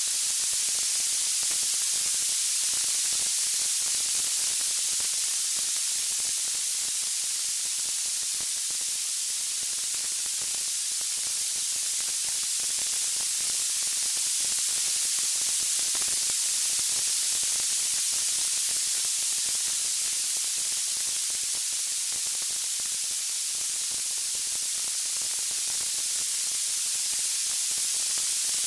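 Steady high-pitched white-noise hiss, even and unbroken.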